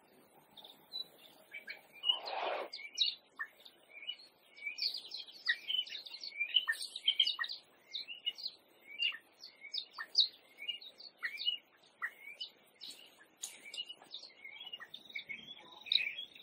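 Many short, high-pitched chirping calls overlapping throughout, with one louder, harsher call about two seconds in.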